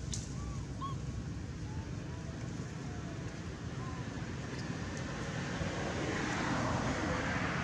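Steady outdoor rumble and wind noise on the microphone, with a few faint short chirps in the first half; the noise swells about six seconds in.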